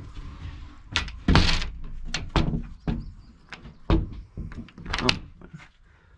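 A handful of irregular knocks and thumps with handling rustle between them.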